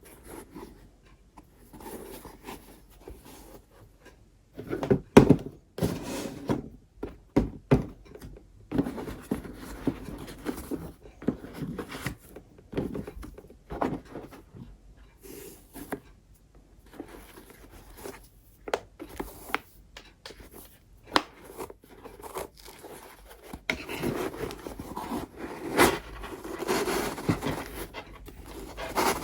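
Hands handling a pair of sneakers and their packaging: irregular rubbing and scraping with scattered light knocks, the loudest knocks about five seconds in and again near the end.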